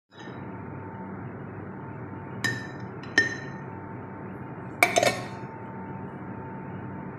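Metal spoon clinking against the glass cream cheese jar and a ceramic plate while cream cheese is scooped out and put on the plate. Two sharp ringing clinks, then a louder double clink about five seconds in, over a steady background hiss.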